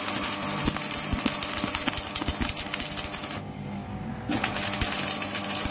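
Stick (arc) welding with a coated electrode on sheet-steel gate framing: the arc crackles and spits steadily, stops about three and a half seconds in, and is struck again about a second later.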